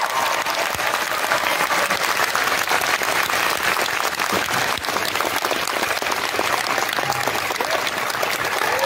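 Audience applause, a dense steady crackle of many hands clapping, as background music fades out at the start and comes back in at the very end.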